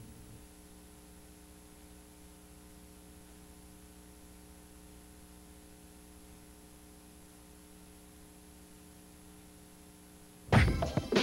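Faint steady electrical hum with light hiss, held on a few fixed pitches, with nothing else in it. About ten and a half seconds in, loud music starts suddenly.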